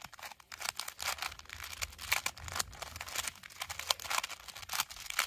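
A plastic 3x3 Rubik's Cube being scrambled by hand: rapid, irregular clicking and rattling as its layers are turned.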